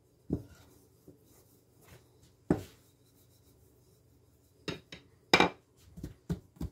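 Rolling pin rolling out thin samosa dough on a kitchen counter: faint rubbing broken by sharp knocks of the pin. The loudest knocks come about five seconds in, as the pin is laid down on the counter.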